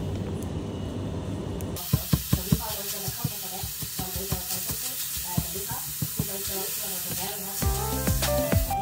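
Raw ground beef starting to sizzle in a stainless-steel frying pan, from about two seconds in, while a spatula breaks it up, tapping and scraping against the pan. Background music comes in near the end.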